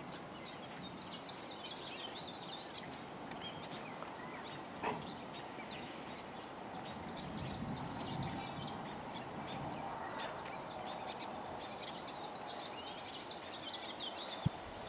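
Insects trilling steadily with a high pulsing buzz, with scattered faint chirps. There is a soft knock about five seconds in and a sharp click near the end.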